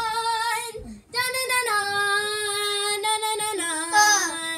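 A young girl singing long held notes: a short break about a second in, then one long note that steps down in pitch towards the end.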